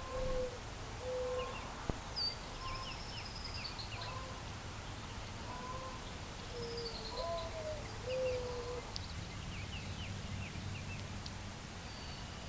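Birds calling: a low, clear whistled note repeats several times over the first nine seconds, some notes bending in pitch, with short high chirps and a couple of falling high calls above it. Steady low background noise runs under the calls.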